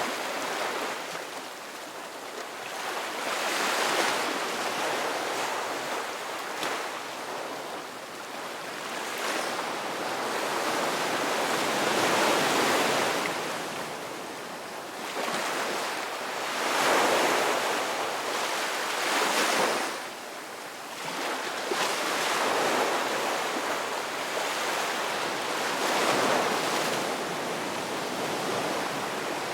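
Ocean waves washing onto a shore, a continuous surf noise that swells and ebbs every few seconds as each wave breaks, with the strongest surges about 12, 17 and 19 seconds in.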